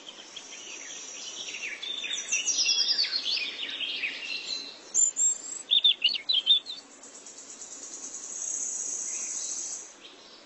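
Birdsong: bursts of short chirping and trilling calls in the first part, then a steady high buzz for a couple of seconds near the end.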